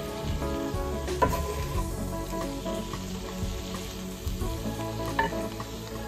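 Fresh vegetables sizzling as they sauté in a hot Lodge cast iron skillet while they are stirred and turned with a wooden spatula, with a couple of light knocks of the spatula against the pan.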